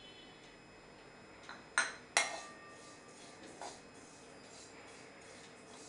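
Metal spoon clinking against a metal kadai: two sharp, ringing clinks close together about two seconds in, then a lighter one, as the spoon starts stirring dry sesame seeds in the pan.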